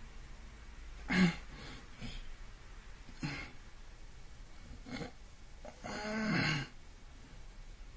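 A man's short breathy vocal noises, several in a row, with a longer one about six seconds in.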